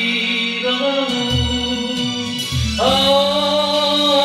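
Male voice singing the end of a line of a slow Korean ballad over electronic keyboard accompaniment, then the keyboard carries on with sustained chords and bass notes between sung lines.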